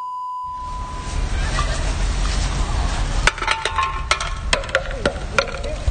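Wind rumbling on a phone microphone outdoors, after a steady tone that lasts about the first second. In the second half there are several sharp clicks and snatches of faint talk.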